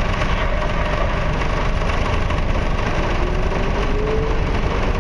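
Container handler's diesel engine running steadily, with a faint rising whine from about three seconds in.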